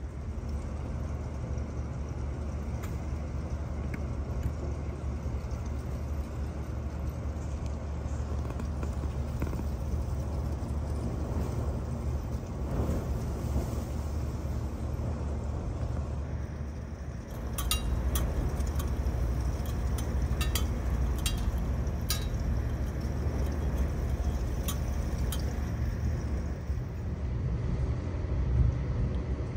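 Storm wind buffeting the microphone, a steady low rumble with a haze of rushing air. About seventeen seconds in it gets louder, and scattered sharp ticks of raindrops join in.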